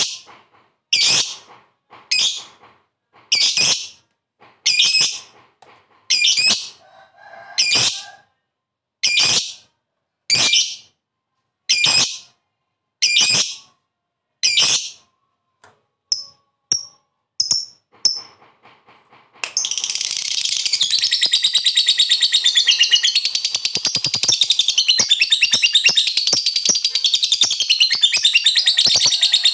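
Lovebird calling: about a dozen sharp, shrill single calls roughly one a second, then a few quicker, fainter chirps. About two-thirds of the way through it breaks into an unbroken, rapid chattering trill, the long 'ngekek' song that lovebird keepers prize in a bird in full song.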